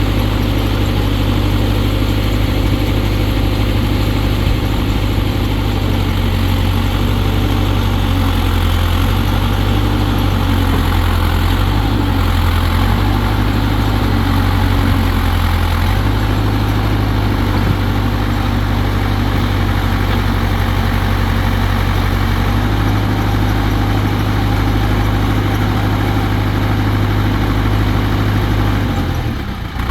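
Diesel engine of a Massey Ferguson 750 backhoe loader idling steadily, with a brief dip near the end.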